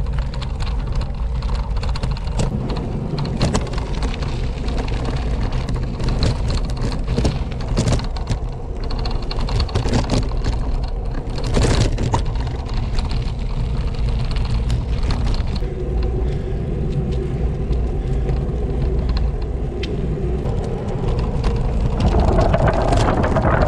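Wind buffeting the microphone of a Koga gravel bike in motion, over steady tyre rumble and crackling gravel crunches from the dirt path. About 22 seconds in the rumble grows louder and brighter as the tyres roll onto wooden bridge planks.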